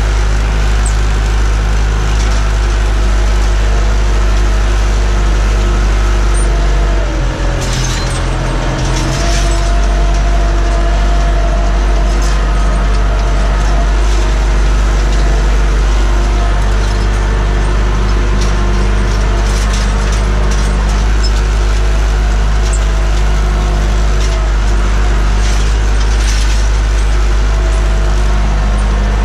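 Massey Ferguson 590's four-cylinder Perkins diesel engine running steadily under load, heard from inside the cab, with an exhaust the owner calls healthy. About seven seconds in, the engine note sags briefly, then picks back up to a slightly higher pitch.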